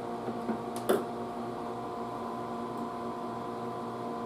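Steady electrical hum from the test bench, made of several steady tones, with one sharp click about a second in.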